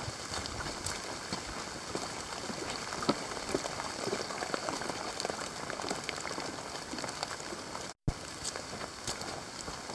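A runner's footfalls and scattered knocks on a wet forest trail and wooden boardwalk steps, over a steady hiss of water. The sound cuts out briefly about eight seconds in.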